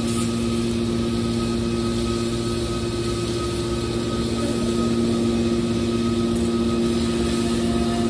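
Steady machinery hum with two strong low tones and a fainter higher whine over a rushing noise, growing a little louder about five seconds in.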